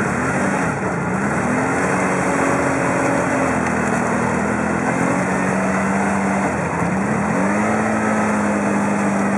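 ATV engines labouring through deep mud and water, the engine note dipping and climbing again twice as the throttle is worked, once about a second in and again near the end.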